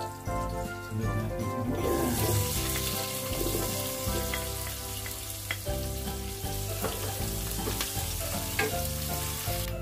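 Chopped garlic and red onion sizzling in hot oil in a nonstick pot, stirred with a wooden spatula with a few light taps against the pan. The sizzle starts about two seconds in.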